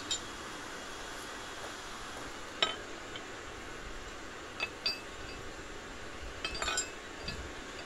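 Forged steel tent pegs are set down one at a time on an anvil face, each giving a sharp metallic clink with a short ring. The loudest comes about two and a half seconds in, a quick pair follows near the middle, and a small flurry of clinks comes near the end.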